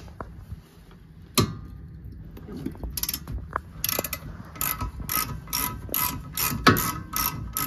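Ratchet wrench with a 14 mm socket loosening a tight brake caliper bracket bolt: a single sharp crack about a second and a half in as the bolt breaks loose, then the ratchet clicking in quick strokes, about two to three a second, as the bolt is backed out.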